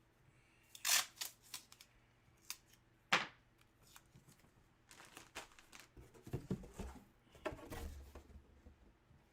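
Packaging being opened by hand: sharp cutting and scraping strokes about one and three seconds in, then a stretch of rustling and handling noise.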